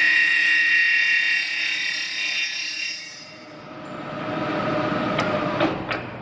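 Vertical knee mill's rotating cutter machining metal, a steady high-pitched whine that fades out about three seconds in. A rougher, noisier cutting sound then builds again, with a few sharp clicks near the end.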